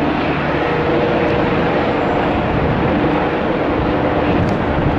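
MBB Bo 105 twin-engine helicopter in flight: a steady, loud rotor and turbine drone with a faint held hum.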